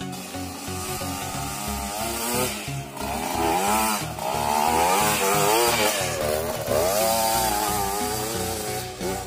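Two-stroke dirt bike engine revving hard, its pitch rising and falling quickly as the throttle is worked. It is loudest in the middle seconds, over background music with a steady beat.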